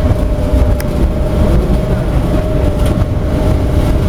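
Biomass sawdust burner test-firing: the large flame jetting from its nozzle gives a steady low rumble, with a steady whine above it and now and then a faint crackle.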